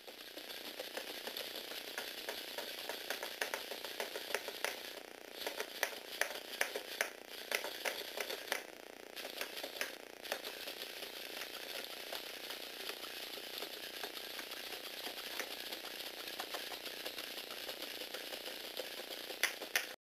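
Lego Technic four-legged walking robot running: a small electric motor whirring through its train of plastic gears, with a steady rattle and many irregular clicks as the gears mesh and the feet tap down. It starts suddenly, and the clicks come thickest in the middle stretch.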